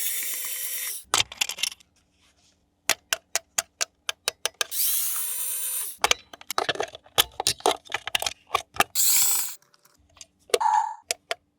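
Small electric motor whirring in two short bursts of about a second each, with rapid series of sharp clicks and ticks between them from handling the plastic toy.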